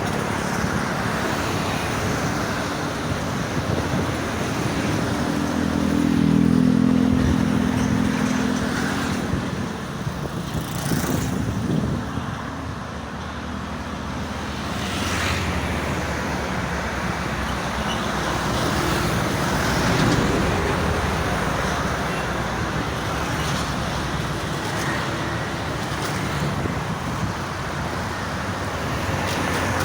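Continuous highway traffic, tyres and engines, with a heavy vehicle's engine passing louder about six to eight seconds in.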